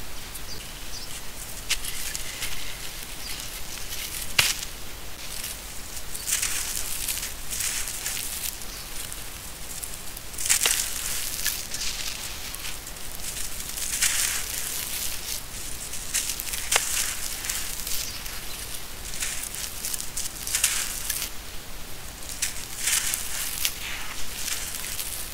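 Dry sand-cement mixture being dug into and crumbled by hand: gritty crunching and hissing of grit sifting, swelling and fading with each handful, with a few sharp cracks as lumps break.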